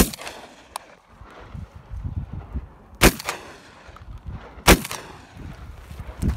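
Three gunshots from a hunting gun fired at a wild boar: one at the very start, a second about three seconds in, and a third about a second and a half after that, each followed by a short echo.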